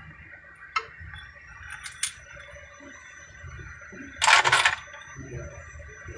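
Metal parts and tools clinking as engine parts are handled and fitted, a few light clicks followed by one louder, short metallic clatter a little past halfway.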